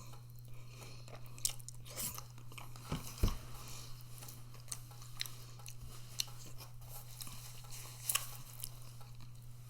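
A person chewing and eating food, with irregular soft mouth clicks and smacks, over a steady low hum.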